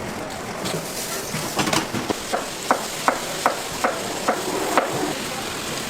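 Food sizzling with a steady hiss, while a cooking utensil knocks sharply about ten times, roughly three a second, for some three seconds.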